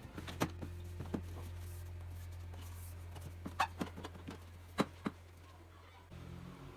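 A few light knocks and clicks of containers being handled and set down, over a steady low hum that stops near the end.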